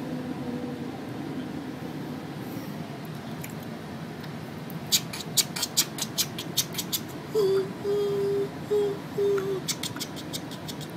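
Steady low hum inside a passenger rail car. About five seconds in comes a rapid run of sharp ticks, then four short beeps at one pitch, and more ticking near the end.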